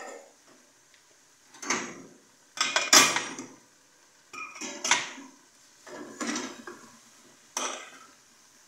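Aluminium cooking pots, a lid and a metal serving utensil clattering and knocking together in about five short bursts, the loudest about three seconds in.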